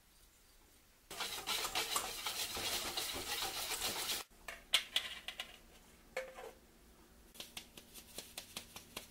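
Wire whisk stirring flour and dry ingredients in a stainless steel bowl, a dense scratching for about three seconds. A few clinks follow, then near the end a quick, even tapping, about three to four a second, as a sieve is shaken over the bowl.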